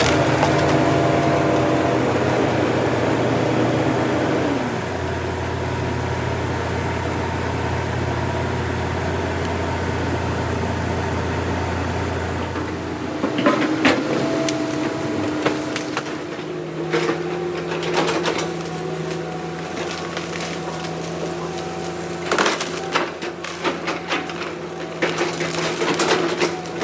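Diesel engine of heavy earthmoving machinery running steadily, its note dropping about halfway through. From then on come repeated sharp cracks and knocks of wood.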